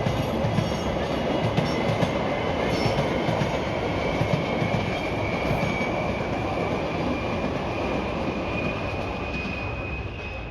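Passing train: a steady rumble of rolling wheels with a thin, high wheel squeal that rises slightly in pitch, easing off near the end.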